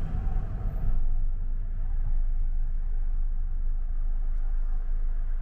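Steady low rumble of a vehicle in motion, heard from inside it.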